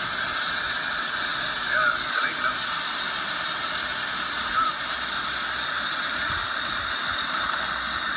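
Steady hissing noise inside a moving vehicle, with faint brief voice-like sounds about two seconds in and again about halfway.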